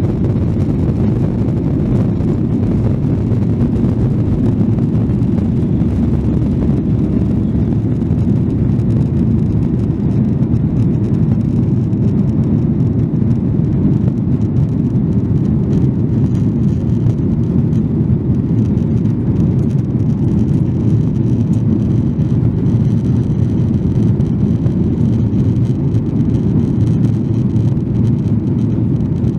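Cabin noise of a Boeing 737-800 taking off, heard from a window seat over the wing: the CFM56-7B turbofans at takeoff thrust and the rushing air make a loud, steady low rumble through the takeoff roll, liftoff and initial climb.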